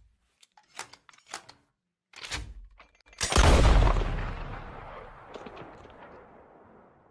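A few short sharp clicks and a brief noise burst, then a loud booming hit that trails off slowly over several seconds: a dramatic impact sound effect for a horror-style logo reveal.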